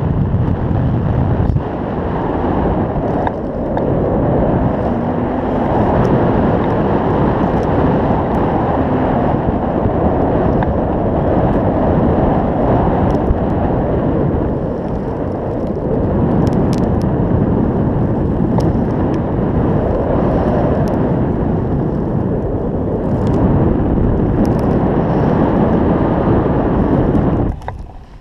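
Wind rushing over the camera microphone in paraglider flight: a loud, steady, low rush of air that eases briefly near the end.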